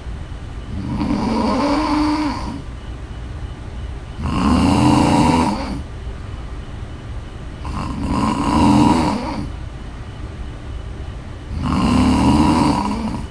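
A woman snoring: four loud snores, each about two seconds long, coming roughly every four seconds, with quieter pauses between.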